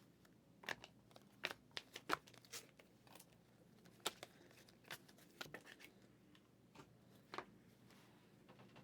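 Faint, irregular clicks and rustles of trading cards and card packs being handled and sorted.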